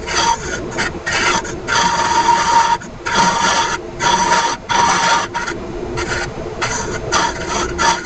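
Hollowing tool cutting inside an Ashe juniper vase spinning on the lathe: a rasping scrape that comes in short spells with brief breaks as the tool is pushed into the wood and eased off.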